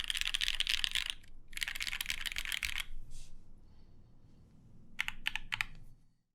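Typing on a Matrix 2.0add custom mechanical keyboard with an aluminum plate, lubed JWK Mauve linear switches and GMK keycaps: two quick runs of keystrokes, a pause, then a handful of single key presses about five seconds in.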